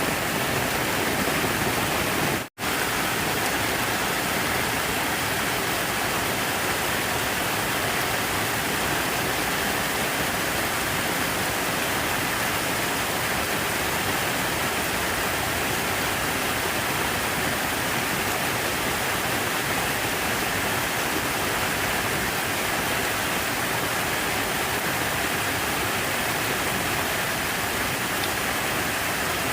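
Steady rush of falling water, like a waterfall or fountain, broken by a sudden brief dropout to silence about two and a half seconds in.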